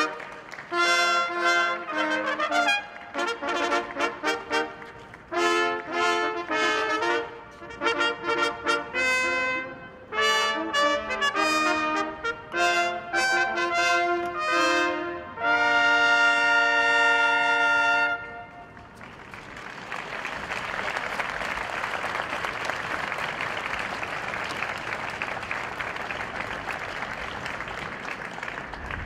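Trumpet fanfare: short phrases of brass notes ending in a long held chord about eighteen seconds in. It is followed by steady applause that slowly fades.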